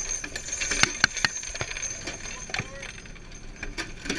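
Irregular metallic clinks and rattles of loose metal in the turret of a moving gun truck.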